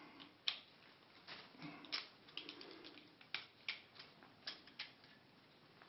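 Faint, irregular small metal clicks and ticks, about a dozen over several seconds, as a screwdriver backs screws out of a 1975 Bally Wizard pinball score reel assembly.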